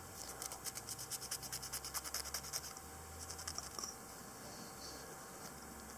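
Wooden toothpick scraping caked dirt off a freshly dug copper large cent: a quick run of faint scratches that thins out after about three seconds.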